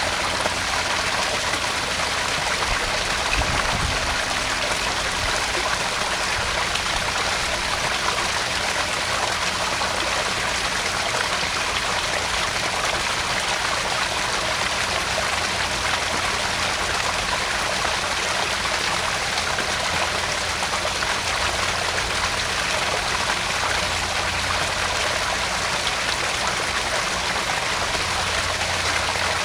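Garden pond waterfall: water spilling and splashing into the pond in a steady, unbroken rush.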